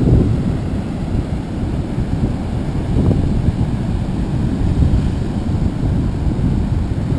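Wind buffeting the camera microphone: a loud, uneven low rumble that rises and falls in gusts.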